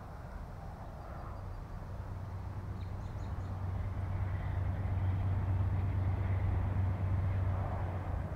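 GE Dash-9 (C44-9W) diesel-electric locomotive approaching, its low engine drone growing steadily louder.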